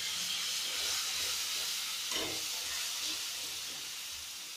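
Onion-garlic masala paste with ground spices and a splash of water sizzling in hot oil in an aluminium kadhai as a spatula stirs it. A steady hiss that slowly dies down.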